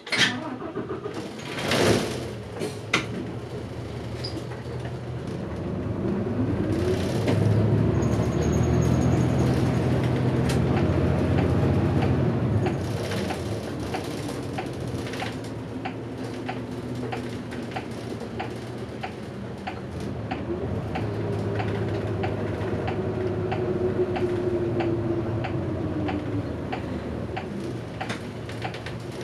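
City bus diesel engine heard from inside the bus as it pulls away from a stop: short hisses of air in the first couple of seconds, then the engine rising in pitch as the bus gathers speed, and easing off as it slows near the end. A steady ticking runs through the later part.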